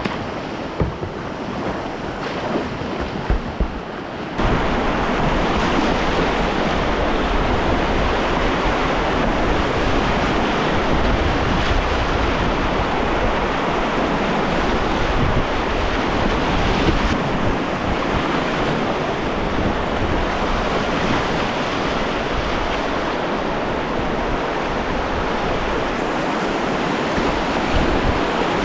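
Whitewater river rapids rushing around a kayak. The first few seconds are quieter, with a few light knocks; then the sound jumps suddenly to a loud, steady rush of churning water.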